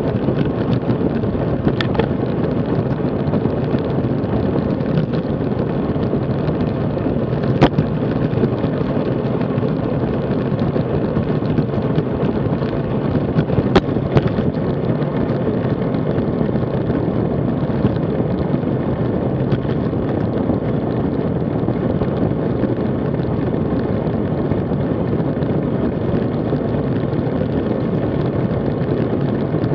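Steady wind rush and tyre-on-road noise on a bike-mounted action camera's microphone while a road bike rolls along at about 28 km/h. A few sharp clicks or knocks stand out, about 2, 8 and 14 seconds in.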